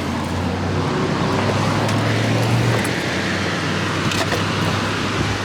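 A car engine running with a steady low hum and road noise; the engine note drops about three seconds in.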